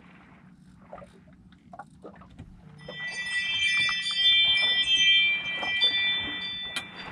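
Chime-like ringing: several high, steady tones sounding together, starting about three seconds in and lasting about three and a half seconds.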